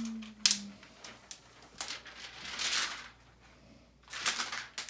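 Handling noises as a white cable is worked at the back of an iMac: a sharp click about half a second in, then light rustling.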